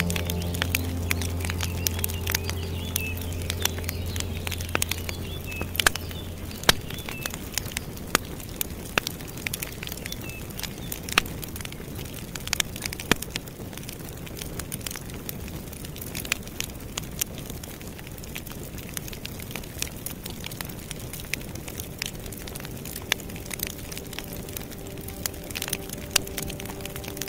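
Wood fire crackling: sharp irregular pops and snaps of burning logs over a soft steady hiss. A low steady drone note fades out about six seconds in.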